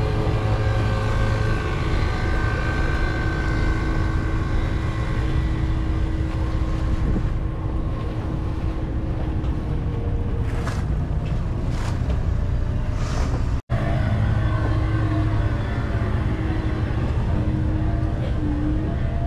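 A boat's engine running steadily, a continuous low drone with a steady hum. It drops out for an instant about two-thirds of the way through, then carries on.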